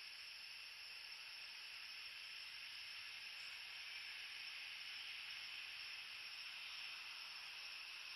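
Faint, steady hiss of night-time background noise on the nest camera's microphone, with no calls or rustling standing out.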